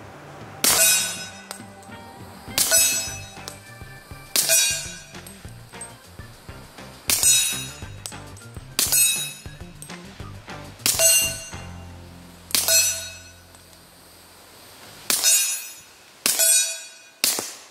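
Suppressed .45 ACP pistol shots from a Smith & Wesson M&P45 fitted with a Liberty Cosmic silencer. There are about ten single shots, one to three seconds apart, each a sharp report with a short ringing tail, over background music.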